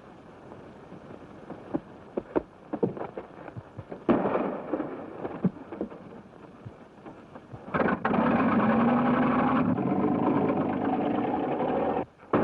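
A scatter of sharp knocks, then a sudden loud crash that dies away, then a loud steady rumble that stops abruptly near the end.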